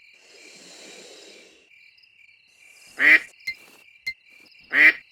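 A duck quacks twice, two short loud calls a second and a half apart, over steady cricket chirping. A soft swell of noise comes and goes in the first second or so.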